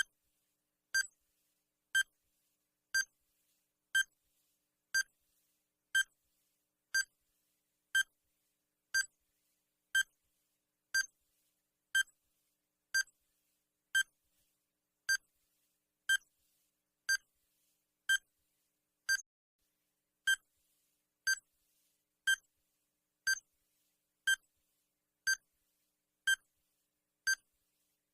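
Digital countdown timer sound effect: a short, high electronic beep repeating exactly once a second, marking each second of the countdown.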